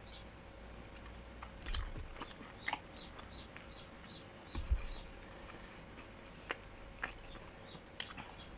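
Close-up eating sounds: pelmeni dumplings and a crust of bread with cream cheese being chewed and bitten, with scattered soft mouth clicks and smacks.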